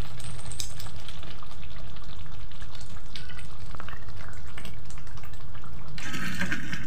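Raw chicken pieces sizzling steadily as they fry in a steel wok, with a wooden spatula stirring and scraping the pan near the end.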